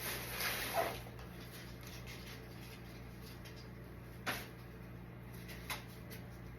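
Handling noises from decorations being unpacked and moved: a brief rustle in the first second, a sharp knock about four seconds in and a couple of fainter clicks, over a steady low hum.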